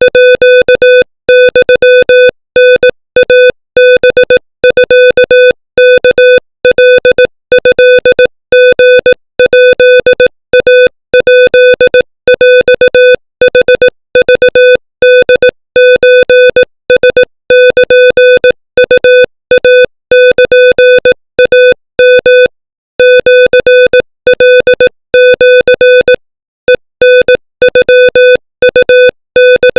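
Morse code sent at 25 words per minute as a single steady, buzzy electronic beep. It is keyed on and off in quick dots and longer dashes, with short gaps between letters and longer gaps between words.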